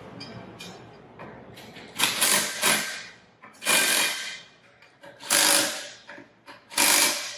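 A power driver running the fasteners of an AODD pump's liquid chamber down in four short bursts, about a second and a half apart.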